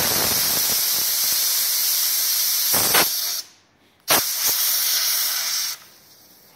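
Air hissing out of a car tyre's open valve stem with the valve core removed, letting the pressure down from the high bead-seating inflation of 70 to about 30. The hiss breaks off for under a second a little past three seconds in, resumes, and stops about a second before the end.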